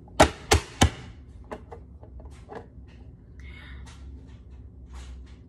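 Plastic push-down vegetable chopper: the lid is slapped down hard three times in quick succession within the first second, forcing cucumber through the dicing grid blades. Lighter plastic clicks and a brief rattle follow as the chopper is handled and the lid is lifted.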